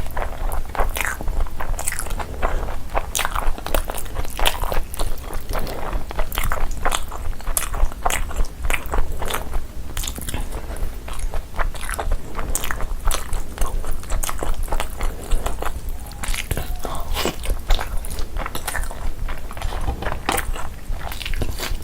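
Close-miked eating: a person chewing and biting food, with a dense, irregular run of wet clicks and smacks and occasional crunches, over a steady low hum.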